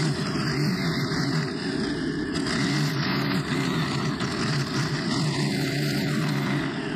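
Stihl FS90R string trimmer's small 4-MIX engine running at high speed, its pitch wavering a little as the spinning line cuts through long grass.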